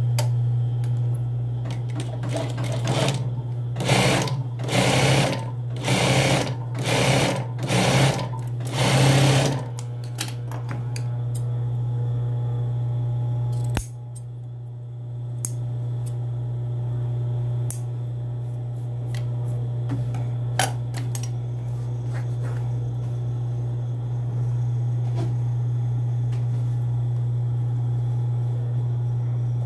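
Industrial sewing machine stitching through trouser fabric in about six short bursts in the first ten seconds, over a steady motor hum. Afterwards the motor keeps humming with a few light clicks, and there is a sharp click about fourteen seconds in.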